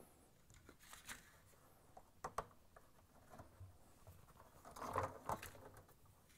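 Faint scuffs and small clicks of hands working a front-load washer's rubber door boot seal around the lip of the plastic outer tub. There is a slightly louder pair of clicks a little over two seconds in and a cluster of rubbing near the end.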